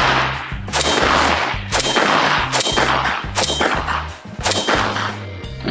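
AK-pattern rifle firing single shots, about five roughly a second apart, each with a long echo trailing off, over background music.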